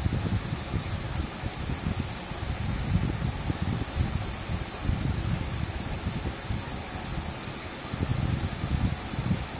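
Servo motors of a six-axis desktop robot arm running in short spells as the arm turns, over a steady hiss.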